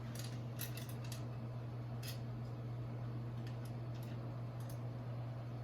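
Light, scattered metallic clicks and ticks of a screw being started into a light switch's mounting, with a few clicks near the start and more about three to four seconds in, over a steady low hum.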